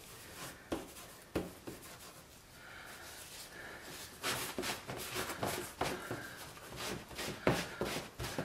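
A cloth rubbing and wiping dye over a heavy leather holster blank, with a few light knocks in the first second and a half. The rubbing gets busier and louder from about four seconds in.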